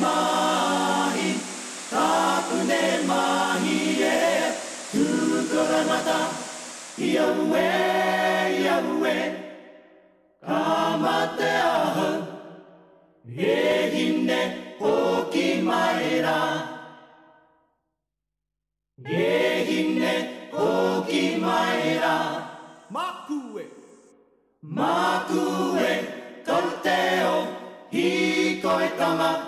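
Unaccompanied choral singing as background music, in phrases of a few seconds with short breaks and one full pause about two-thirds of the way in.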